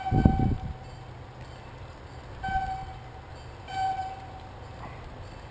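Train horn blowing: a long blast that ends about half a second in, then two short blasts, over the low steady rumble of the passing train. A thump near the start.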